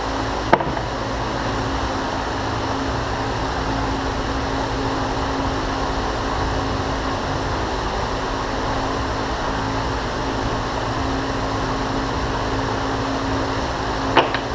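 Steady hum of a fan running in the shop, with a low steady tone under it. Two short clicks, one about half a second in and one near the end, as small steel parts are handled.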